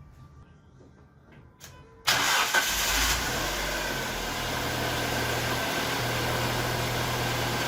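2003 Neon's four-cylinder engine starting: a couple of faint clicks, then it catches suddenly about two seconds in, flares briefly and settles into a steady idle.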